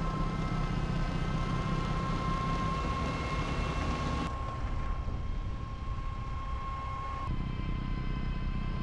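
Tractor-mounted Dalen snow blower running at work, cutting into packed snow and throwing it, over the tractor's engine rumble, with a steady high whine from the drive. The sound shifts abruptly about four and again about seven seconds in.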